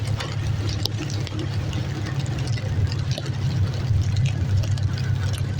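An engine running steadily with a low hum, under a crackling hiss.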